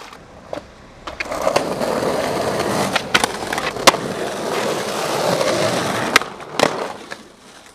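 Skateboard wheels rolling on asphalt for about five seconds, with sharp clacks of the board striking the ground. The loudest clack comes near the middle, and a couple more come near the end as the rolling stops.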